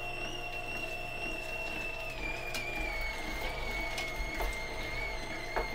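Green Star twin-gear juicer running with a steady high motor whine over a low hum, while lemon pieces are pressed down its chute with a wooden plunger. The whine drops slightly in pitch about two seconds in, and there are a few short clicks from the gears crushing the fruit.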